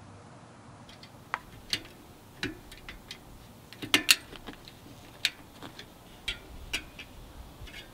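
Irregular sharp metallic clicks and ticks from bicycle wheel spokes and a hand tool as the spokes are worked loose at the rim. There are about a dozen clicks, starting about a second in, with the loudest pair about four seconds in.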